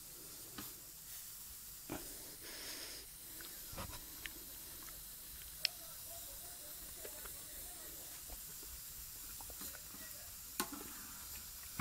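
Chicken mince frying faintly in oil in a non-stick pan, with a plastic spatula scraping and tapping against the pan as it is stirred. A few sharp taps stand out, the loudest about five and a half seconds in.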